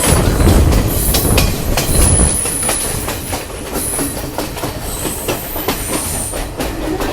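Passenger train running on the rails: a steady rumble with wheels clicking over rail joints and a few short, high wheel squeals. The rumble is heaviest in the first couple of seconds.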